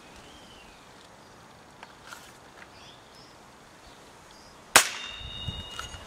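A .22 Sussex Armoury Jackal spring-piston air rifle fired once near the end: a single sharp crack followed by a ringing tone that lasts about a second.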